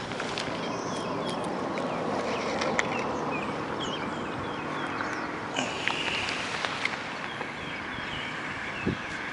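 Birds chirping, repeating short falling notes over and over, over a steady rushing background. A few sharp clicks and knocks of handling are heard, one near the end.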